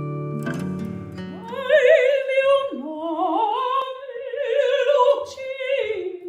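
A held synthesised chord, then about a second and a half in a female opera singer starts singing a classical vocal phrase with wide vibrato, her pitch dipping and climbing from note to note.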